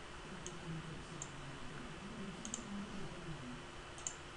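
Computer mouse button clicking: single clicks about half a second and a second in, then two quick double clicks, about two and a half and four seconds in.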